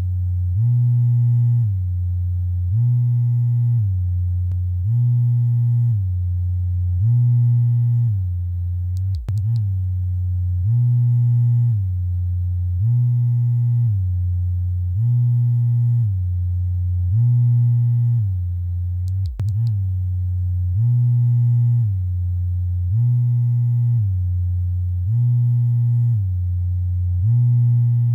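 Vibrator buzzing in a pulsing mode: a low hum that swells and steps up in pitch, then drops back, about once every two seconds. It cuts out for an instant twice, about a third and two thirds of the way through.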